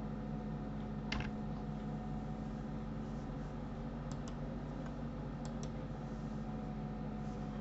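A few scattered clicks of a computer mouse and keyboard, a sharper one about a second in and quick pairs around four and five and a half seconds in, over a steady low electrical hum.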